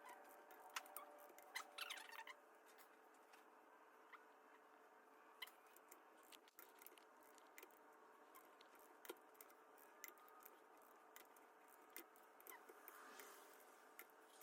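Near silence with faint scattered clicks and ticks over a low steady hiss.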